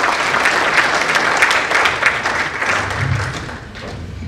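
Audience applauding, a dense patter of many clapping hands that dies away over the last second or so.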